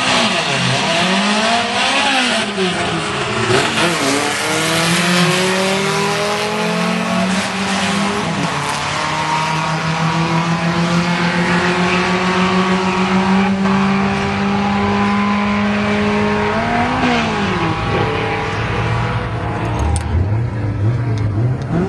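Drag-racing engines revving hard in quick rises and falls at the start line, then launching and running down the strip, the engine note held in long, slowly gliding pitches.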